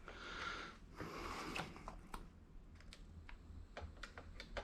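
Light clicks and soft rustling from hands handling the RC car and its transmitter.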